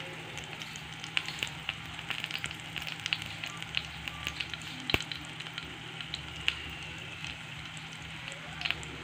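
Small chilies and shallots sizzling in a little oil in a frying pan, fried until wilted, with scattered small pops and crackles and one sharper click about five seconds in.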